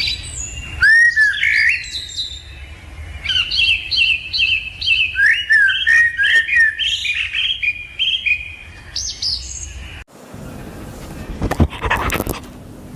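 Rosy-faced lovebirds chirping over and over in short, high, sharp calls, several a second at their busiest. Near the end the birds stop and a few sharp clicks follow.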